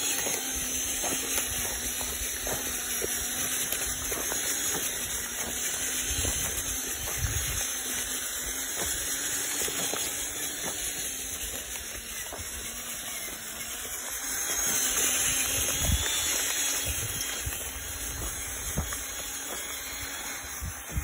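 Small electric motor of a handmade RC toy Farmtrac 6055 tractor running steadily, a hum under a high hiss, with scattered small clicks and irregular low rumbles as it crawls over dirt and stones.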